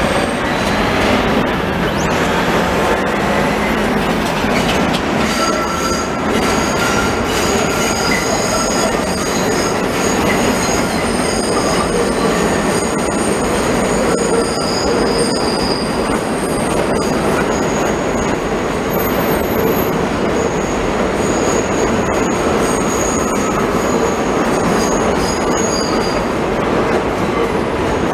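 New York City subway train running over a steel elevated structure: a steady rumble and rattle of wheels on track. High-pitched wheel squeal in several tones sets in about five seconds in and fades near the end.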